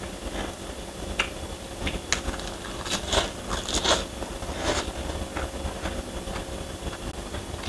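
Close-up crunching and chewing of a mouthful of fresh lettuce leaves: a string of short, crisp crunches, the strongest about three to four seconds in.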